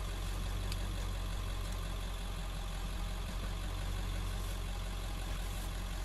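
A vehicle engine idling steadily, an even low hum.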